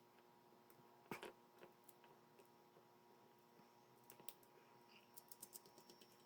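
Faint clicks and light taps of small metal screws and lock nuts being handled and fitted to a servo bracket: one louder knock about a second in, then a run of quick small clicks near the end, over a faint hum.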